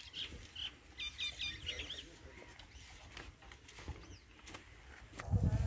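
Small birds chirping in quick runs of short, high notes during the first two seconds, over a low rumble. A louder low sound with steady tones starts near the end.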